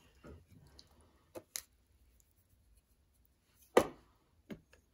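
A few light clicks and knocks of seasoning containers being handled on a kitchen worktop, the loudest a single sharp knock about four seconds in.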